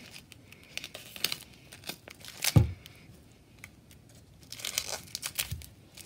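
Duct tape being peeled and pressed around a hand, crackling and crinkling in short irregular bursts. There is one thump about two and a half seconds in.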